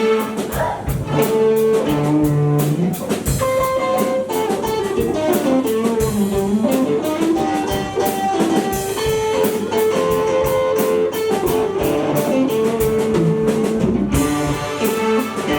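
Instrumental music played pizzicato, with the strings plucked, in a lively melody of short notes and some held ones.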